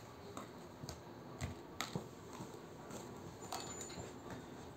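Scattered light clicks and taps of small plastic slime tubs and plastic tools being handled and set down on a paper board, with a few sharper knocks.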